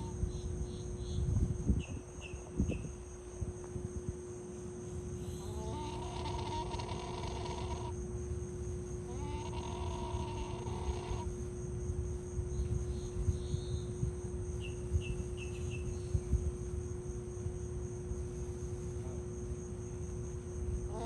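Yellow-crowned night heron giving two drawn-out, raspy complaining calls, each about two seconds long, around six and ten seconds in, over a steady insect drone. A few short high chirps come in small groups near the start and in the middle.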